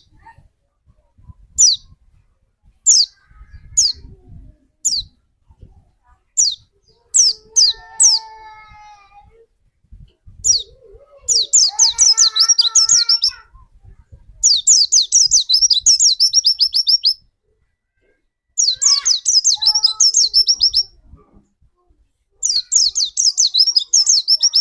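Pleci (white-eye) songbird singing: single sharp, high, falling chirps at first, then four long bursts of very rapid chirping, the fast 'nembak' song.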